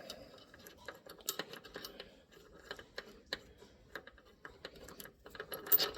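Irregular small metallic clicks and ticks, busier near the end, as a 5/16 bolt and nut are unthreaded and pulled out of a GM door hinge after drawing a brass hinge-pin bushing in straight.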